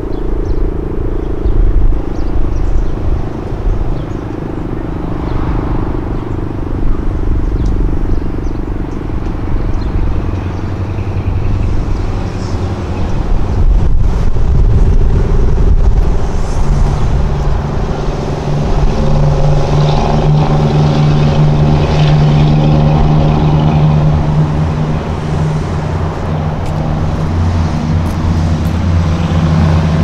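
STL-10 outdoor warning siren winding down after its short alert: a loud, low, steady drone with a stack of overtones that grows stronger about halfway through, over low wind rumble on the microphone.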